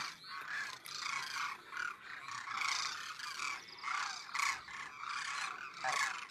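A flock of demoiselle cranes calling in flight overhead: many short, overlapping calls following one another without a break.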